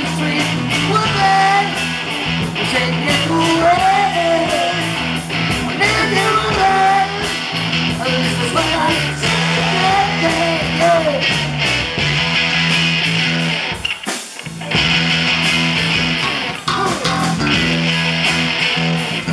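Live rock band playing: electric guitars, bass and drums, with a voice over the music in the first half. The band drops out briefly about two-thirds of the way through, then comes back in at full level.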